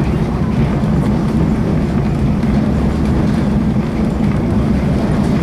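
Steady low rumble of a passenger train in motion, its cars rolling and rattling on the track.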